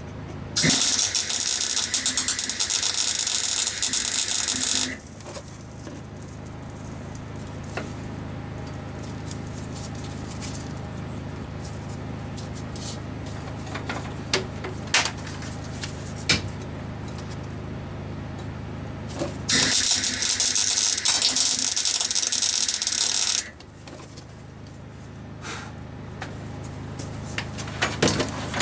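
MIG welder laying tack welds: two bursts of welding of about four seconds each, the first at the start and the second near the end. Between them a generator runs with a steady hum, with a few light clicks.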